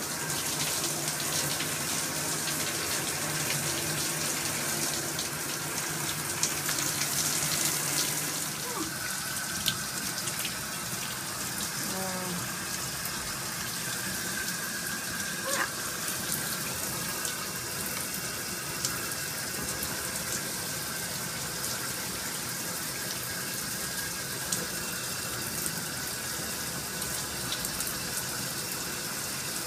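Hot water running steadily from a bathroom tap, a little louder for the first several seconds.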